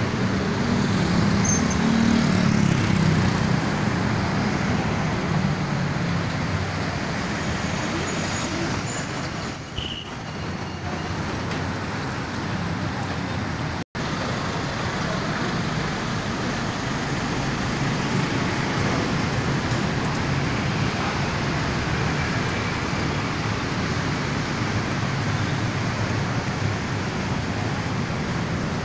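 Steady city road traffic: cars and buses passing, with a low engine rumble strongest in the first few seconds. The sound breaks off for an instant about halfway through.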